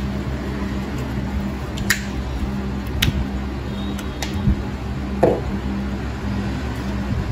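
Nail nippers snipping through a thick, crumbling toenail: about five sharp clicks spread over several seconds, the last one fuller and lower. A steady low hum runs underneath.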